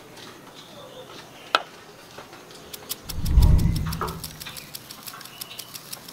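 Food-prep handling at an earthenware mixing bowl of flour, with a single click about a second and a half in and a deep thump about three seconds in. After the thump comes a run of light, rapid ticks as granulated sugar is poured from a small plastic cup into the bowl.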